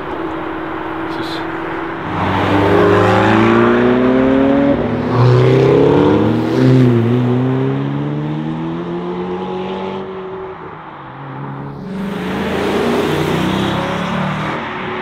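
McLaren GT's twin-turbo V8 accelerating hard, its pitch climbing and dropping back at several quick upshifts, after a steadier engine note. Near the end another car, a Lexus LC 500 convertible's V8, pulls away.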